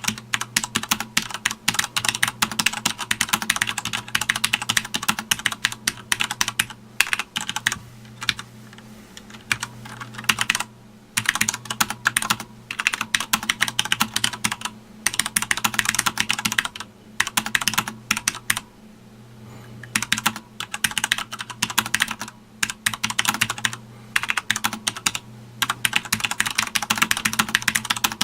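Fast typing on a Sanwa Supply SKB-MK2BK mechanical keyboard: rapid runs of key clicks, broken by short pauses a few times.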